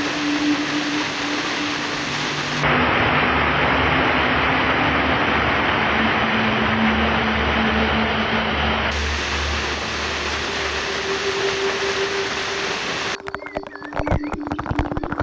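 Waterfall rushing, a steady wash of falling water whose loudness jumps abruptly twice. Near the end it gives way to a sparser run of sharp clicks.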